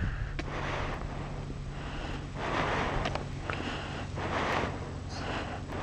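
Suzuki Hayabusa GSX1300R inline-four engine running steadily at low revs as the bike rolls slowly. Repeated short rushes of noise sound over it every second or so.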